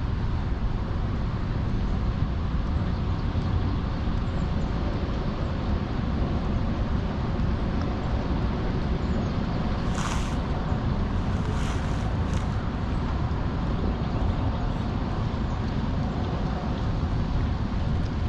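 Steady low outdoor rumble of wind and distant noise, with three short hissy sounds a little past the middle.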